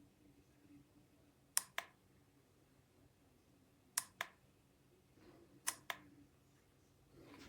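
Crackle box playing a simulated log-fire crackle: sharp pops in pairs, three pairs about two seconds apart, faint over a low steady background.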